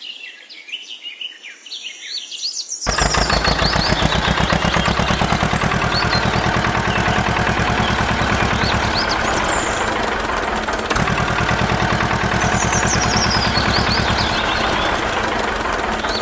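Birds chirping, then about three seconds in a tractor engine sound starts abruptly and runs steadily at a fast, even beat, with the birds still chirping over it.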